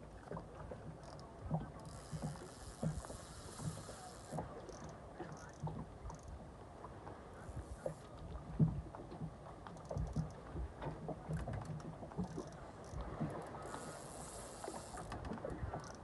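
Water splashing and irregular knocks and thumps while a large hooked fish is being fought on rod and line. There are two stretches of hissing splash, one about two seconds in and one near the end.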